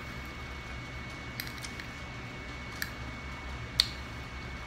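Someone eating salad with a fork from a plate: a few short, sharp clicks and crunches, the loudest near the end, over a faint steady hum.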